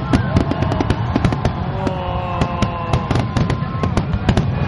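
Fireworks display: many sharp bangs and crackling bursts in quick irregular succession over a steady low rumble.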